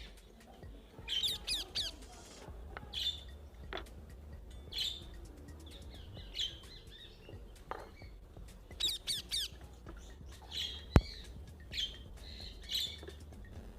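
Birds chirping in short calls and quick trills every second or so over a low hum, with one sharp click near the end.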